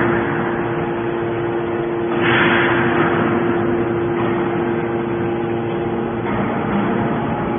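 Hydraulic scrap metal baler running: the steady hum of its hydraulic power unit, with a hissing rush that swells about two seconds in and again, more weakly, near the end as the press works.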